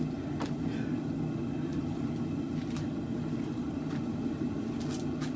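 A forge runs with a steady rumbling roar, and a few faint ticks sound over it.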